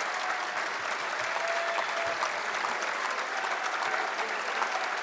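Members of parliament applauding, a steady clapping that runs on without letting up.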